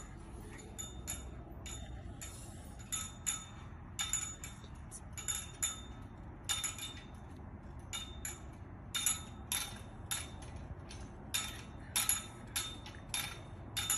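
Light metallic clinks and jingles, sparse at first, then repeating about once or twice a second from about four seconds in, over a low steady background hum.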